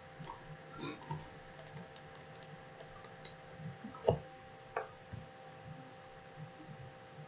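Scattered computer mouse clicks, the sharpest two about four and five seconds in, over a faint steady hum.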